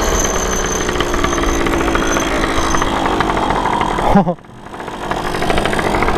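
Two-stroke moped engine running under way. A little over four seconds in, the engine note falls away sharply and the sound drops for a moment, then builds back up.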